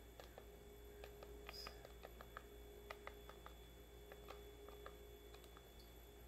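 Faint, irregular clicking of computer keyboard keys as a password is typed, over a faint steady hum.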